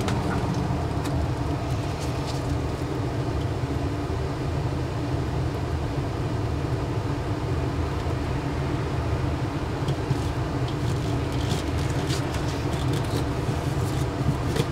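A steady low rumble of a running motor or engine. From about ten seconds in there are faint light clicks and crackles as peel-and-stick tile sheets are pressed onto the wall.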